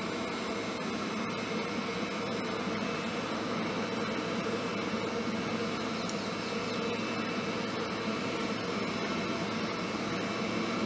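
Electric air blower forcing air into a charcoal forge fire: a steady rushing hum with no change in level.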